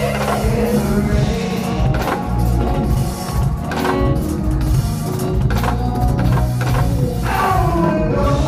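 Live band playing a song, with drum kit and electric guitar in the mix and a melody line above them.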